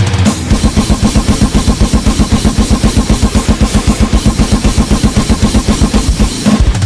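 Loud music driven by a drum kit playing a fast, even beat.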